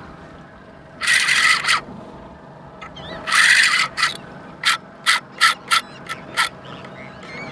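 Shimano Saragosa 10000 spinning reel's drag buzzing as a hooked amberjack pulls line off: two runs of about a second each, then a quick string of short bursts.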